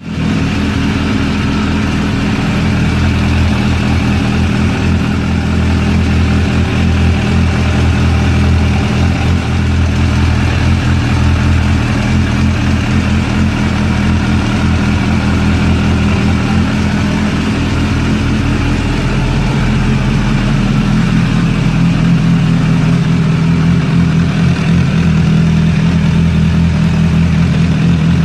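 Suzuki Bandit 600's air-and-oil-cooled inline-four engine idling steadily, with the engine clatter that the owner finds suspect and cannot identify; the valve clearances have not been checked.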